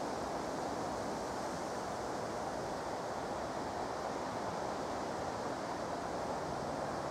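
Steady, even rushing wind outdoors, unchanging throughout.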